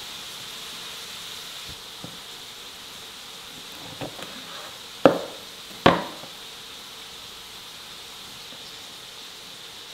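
Kitchen knife cutting oyster mushrooms on a wooden cutting board: a few soft knocks, then two sharp knocks of the blade striking the board about five and six seconds in. A steady high-pitched buzz runs underneath.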